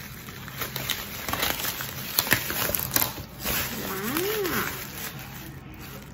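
Plastic bag wrapping crinkling and rustling, with quick snips and clicks, as it is cut and pulled open by hand around a soup container. About four seconds in, a person gives a brief hum that rises and falls in pitch.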